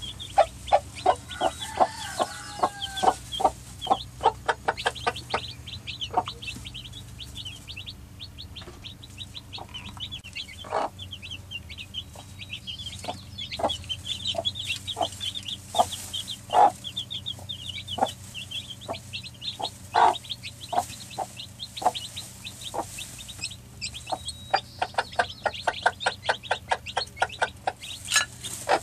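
Newly hatched chicks peeping almost without pause, a quick run of short high cheeps. A broody hen clucks among them now and then, her short lower calls the loudest sounds.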